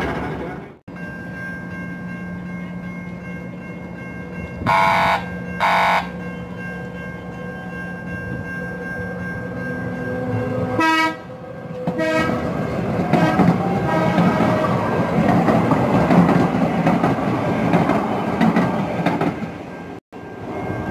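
San Diego Trolley Siemens SD100 light-rail train at a platform: two short horn blasts about five seconds in, a brief ringing chime about halfway through, then the rumble of motors and wheels growing as it pulls out of the station.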